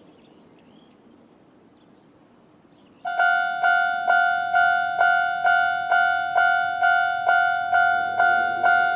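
A Japanese railway level crossing's electronic warning bell starts about three seconds in and rings its normal 'kan-kan' alarm, a steady ringing tone struck about twice a second. A low rumble joins near the end.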